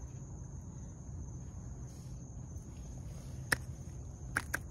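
Steady high-pitched chirring of night insects, with a low background rumble. One sharp click sounds about three and a half seconds in, and two quick clicks come near the end.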